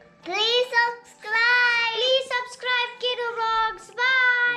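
Children singing a tune in short held phrases with brief pauses between them, each phrase sliding up in pitch as it starts.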